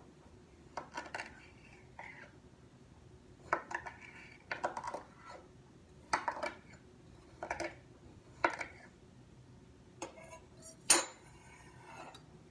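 Small hard play tools and containers knocking and clinking against each other, about ten short knocks at irregular intervals, with the loudest near the end.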